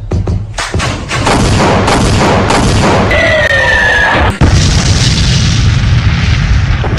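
Explosion and boom sound effects in a loud dance music mix: a quick run of hits, then a sustained rushing blast with a falling whistle, and a heavy booming blast about four and a half seconds in.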